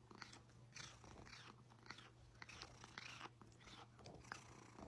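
Very faint, scattered wet mouth clicks of a cat smacking its lips and chewing, barely above near silence.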